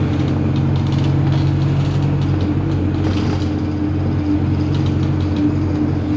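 Interior of a moving bus: the engine runs steadily with a low drone and a thin held tone, and faint rattles come and go.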